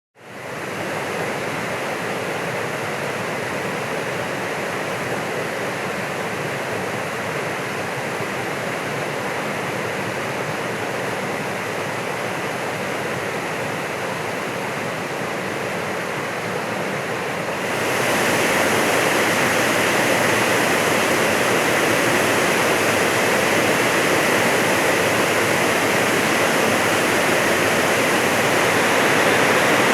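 Water rushing steadily over Eryuda Falls, a wide, low-drop waterfall. The sound fades in at the start and gets louder about eighteen seconds in.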